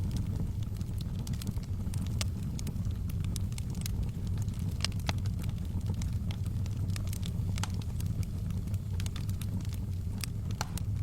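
Wood fire burning in a fireplace, crackling with frequent sharp, irregular pops over a steady low rumble.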